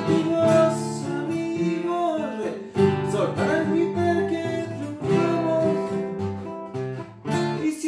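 Nylon-string classical cutaway guitar strummed and plucked in a bolero accompaniment, with a man singing the melody over it.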